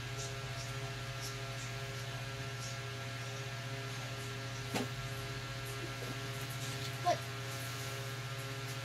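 Steady electrical mains hum, with one short faint click about halfway through.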